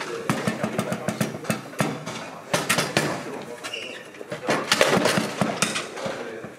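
Foosball play on a Bonzini table: a run of sharp clicks and knocks as the ball is tapped between the figures and the rods clack in the table, with a dense flurry of them about four and a half to five and a half seconds in.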